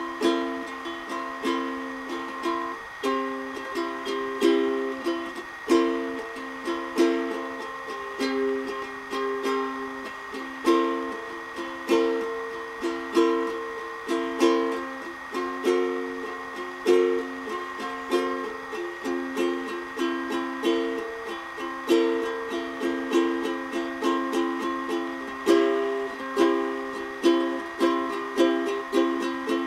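Green Donner ukulele being played: chords in a steady rhythm, each one picked or strummed and left to ring and fade.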